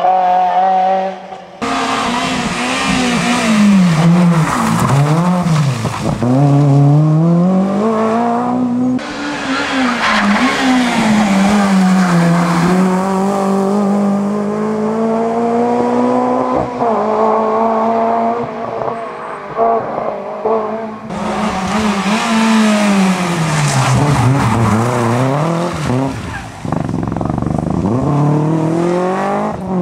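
Rally car engines passing one after another on a tarmac stage. Each engine note drops as the car brakes and downshifts for a bend, then climbs again as it accelerates away. The sound jumps abruptly from one car to the next about a second and a half in, about nine seconds in and about twenty-one seconds in.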